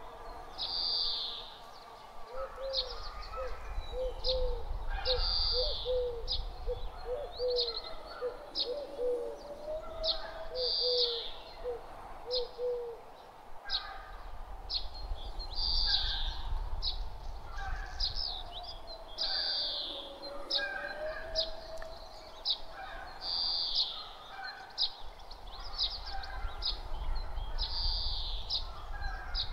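Birds chirping and calling throughout, short high notes repeated every second or so, with a lower rapid series of short notes in the first half, over a low rumble of breeze.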